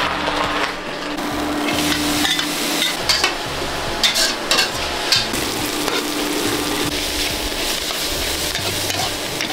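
Food sizzling as it is stir-fried in a hot pan. A metal spatula scrapes and knocks against the pan several times, more often in the first half.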